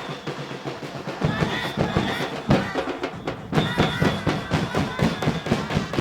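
Murga street band playing: drums keep up a steady driving beat while voices sing over it.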